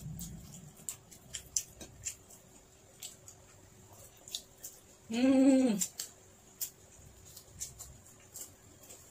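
Close-up eating sounds: soft mouth clicks and smacks of chewing, along with fingers handling food. About five seconds in, a short hummed "mmm" from the eater.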